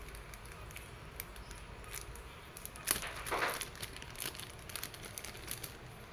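Small clear plastic zip bag crinkling and rustling in the hands, with light scattered clicks and a sharper click and rustle about three seconds in.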